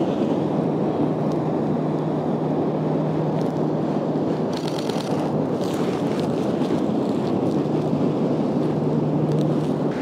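Steady wind buffeting the microphone over surf washing up on the beach, with a faint low hum under it. About halfway through, a short rapid run of faint clicks: a Canon R5 mechanical shutter firing a burst.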